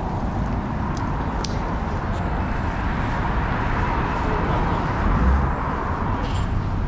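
Street traffic: a vehicle passing, its noise swelling and then easing over a few seconds over a steady low rumble.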